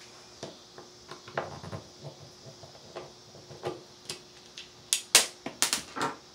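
Metal screwdriver tapping and scraping against the screw of a plastic outlet cover plate, a string of small clicks and knocks with a quick run of sharper clicks about five seconds in.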